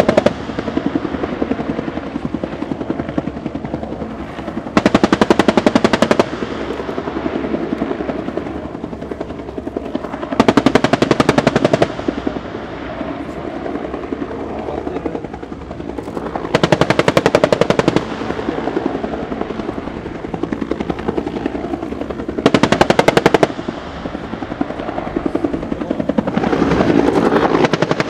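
An AH-1S Cobra attack helicopter's M197 20 mm three-barrel electric cannon firing four bursts of about one to one and a half seconds each, roughly six seconds apart, each a fast unbroken stream of shots. Between bursts the hovering helicopter's rotor and turbine run steadily, growing louder near the end.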